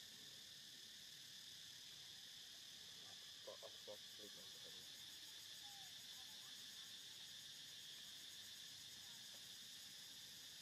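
Faint, steady high-pitched drone of insects, with a quick cluster of three or four short chirps about three and a half seconds in.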